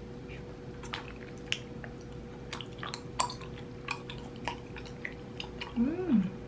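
Chewy rice-cake tteokbokki being chewed, with its thick gochujang sauce squishing around the chopsticks: scattered small wet clicks and smacks. Near the end comes a short hum that rises and then falls in pitch.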